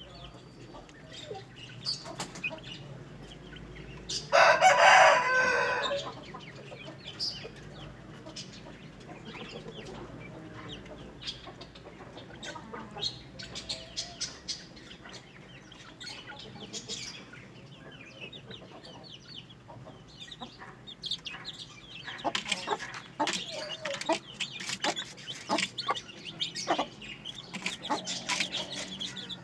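Aseel chickens and chicks clucking and calling, with one loud crow about four seconds in that lasts under two seconds. Short calls come thicker in the last several seconds.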